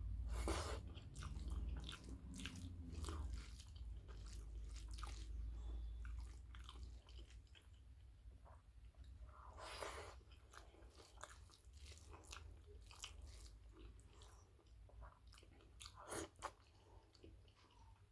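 Close-miked chewing and biting of rice with potato and drumstick curry: wet smacks and small clicks, with a few louder crunchy bites near the start, about ten seconds in and about sixteen seconds in.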